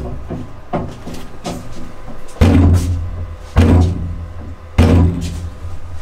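Three heavy, deep thumps evenly spaced about a second apart, amid lighter knocks.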